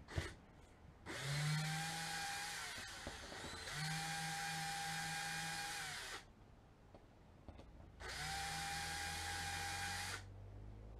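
Cordless drill running in three bursts of about two seconds each, spinning up and winding down each time, as it drives a screw into a fibreglass boat deck to fasten a heading-sensor mount. A short click sounds just before the first burst.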